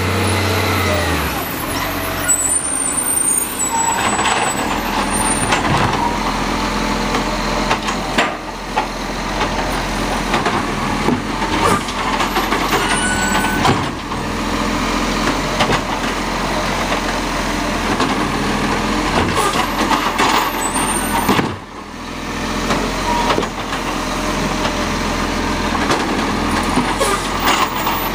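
Side-loading garbage truck idling while its hydraulic lifting arm grabs a wheelie bin, raises and tips it, then sets it back down. Clatter runs throughout, with several sharp clunks and bangs from the arm and bins.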